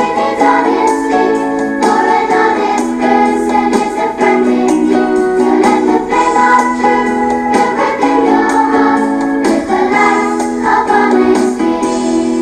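Background music: a song with singing over instruments.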